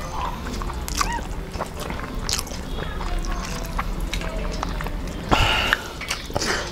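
Eating by hand: fingers mixing rice and curry on plates, with small scattered clicks, taps and moist chewing and mouth sounds. A brief louder noisy rustle comes about five seconds in.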